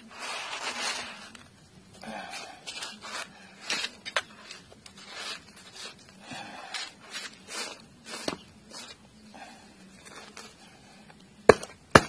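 Hands scraping and pressing coarse sand around a plastic mould in a plastic tray: an uneven gritty rustle with scattered small clicks, and one sharp click near the end.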